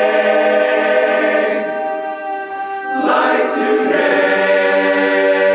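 Barbershop chorus singing a cappella, holding long sustained chords of a song's final ending: one chord held and fading about two seconds in, then a new full chord swelling from about three seconds in and sustained.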